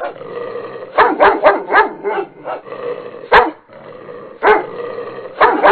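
Dog barking: a quick run of about five barks, then two single barks a second or so apart, and the same quick run again near the end.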